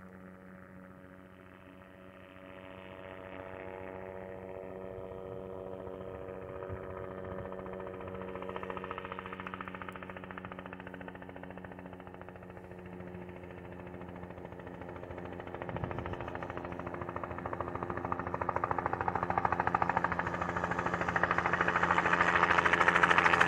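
Helicopter approaching, its rotor and engine growing steadily louder with a rapid beat of the blades.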